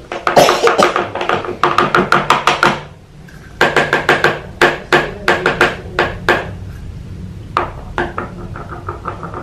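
Quick repeated bangs on a tabletop, about five a second, each with a short ringing tone, in three runs with brief pauses between them.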